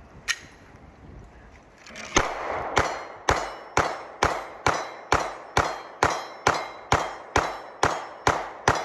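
A 9mm Glock 17 Gen 5 pistol firing a steady string of about fifteen shots, roughly two a second, after a single sharp click. It cycles without a stoppage, "smooth as butter".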